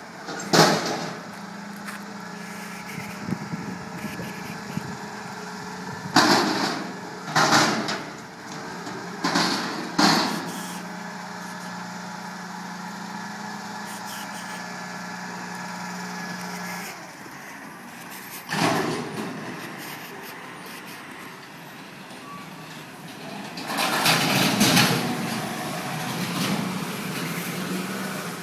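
Garbage truck working down the street: a steady engine hum runs through the first half and cuts off about two-thirds of the way in. Several short, loud bursts of noise break in, four of them close together in the first third, one more after the hum stops, and a longer noisy stretch near the end.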